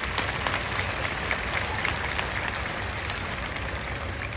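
Large crowd applauding: many hands clapping in a steady, dense patter.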